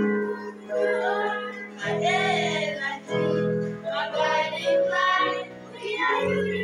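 A group of children singing a song together, accompanied by an electronic keyboard holding sustained chords.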